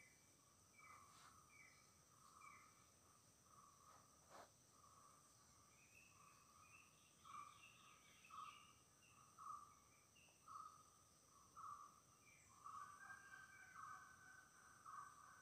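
Faint forest morning ambience. Birds call with a repeated note, once or twice a second, that grows louder about halfway through, and short higher chirps come in between. Insects keep up a steady high-pitched drone throughout.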